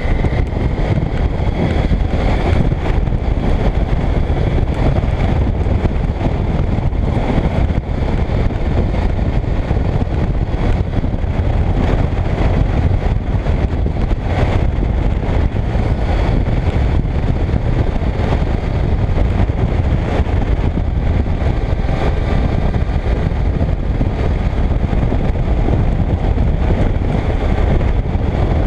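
Steady wind noise on the action camera's microphone at road speed, with the inline-four engine of a Yamaha FZ1 Fazer motorcycle running underneath at a cruise.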